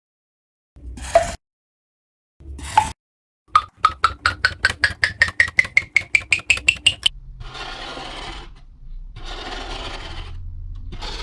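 Workshop hand-tool work: two short scrapes, then a run of about twenty quick, sharp clicks rising steadily in pitch, then two long rasping strokes.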